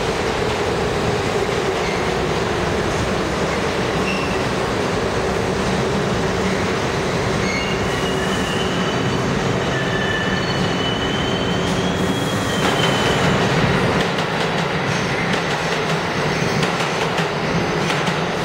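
New York City subway train running past along the station platform, a steady loud rumble of wheels on rail. High-pitched wheel squeals come and go through the middle of the pass.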